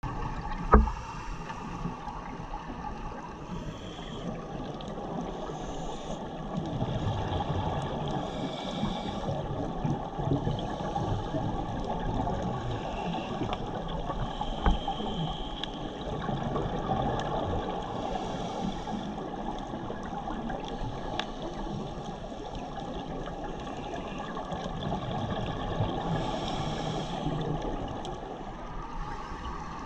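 Underwater ambience picked up by a camera in its waterproof housing: a steady muffled wash of water noise, with a faint hiss that swells and fades every few seconds. Two sharp knocks stand out, the loudest about a second in and another about halfway through.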